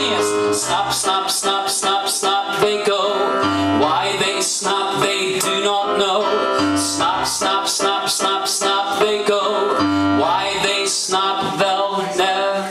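Band music without vocals at the close of the song: many instruments play together over a regular beat.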